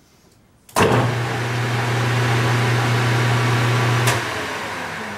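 Metal lathe spindle switched on under a second in, its electric motor and gearing running with a steady hum for about three seconds; a click about four seconds in as it is switched off, and the spindle coasts down with the hum fading away.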